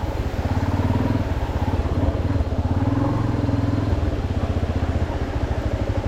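Yamaha Lander XTZ 250's single-cylinder four-stroke engine running at low, steady revs, with a fast even pulse.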